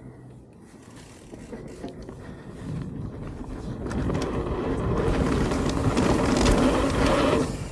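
Mountain bike rolling down a dirt jump trail: tyre noise and frame rattle with rushing air on the microphone, growing steadily louder as the bike picks up speed.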